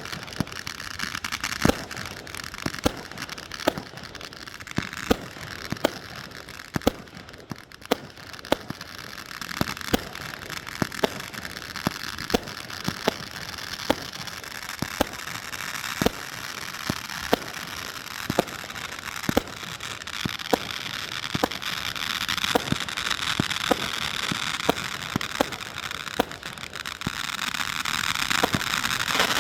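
Consumer 36-shot firework cake (Card Master) firing its shots in steady succession, about one and a half pops a second, with crackling that grows louder near the end.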